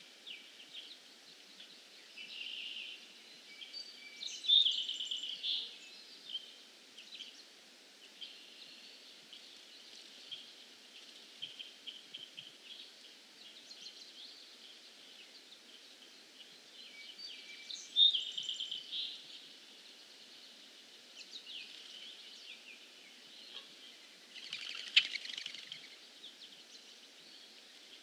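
Songbirds singing around a wooded pond in spring, several birds at once. A few louder song phrases stand out about 4, 18 and 25 seconds in, over fainter calls and a faint steady background noise.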